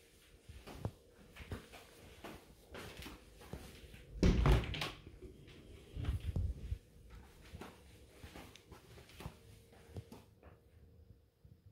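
A wardrobe door is opened with a loud knock and rattle about four seconds in, then knocks again about two seconds later. Soft footsteps and handling clicks run throughout.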